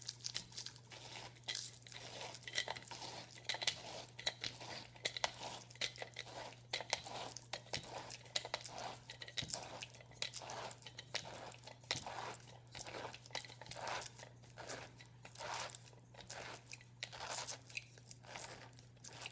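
Stainless pineapple slicer being twisted down into a pineapple, its blade crunching and tearing through the fibrous flesh in a long string of short, irregular crunches.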